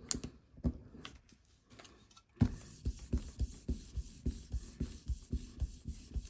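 A hand tool working over a gel printing plate: a few faint taps, then a sharp knock about two and a half seconds in, followed by a run of quick even strokes, about four a second.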